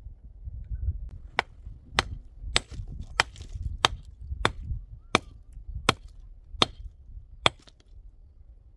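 Wood being chopped: about ten sharp strikes at a steady pace, roughly one every two-thirds of a second, stopping near the end.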